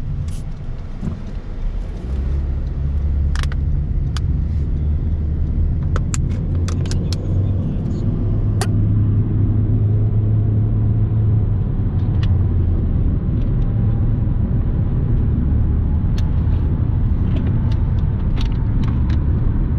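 Car engine and road rumble heard from inside the cabin while driving, louder after about two seconds, with a few scattered sharp clicks.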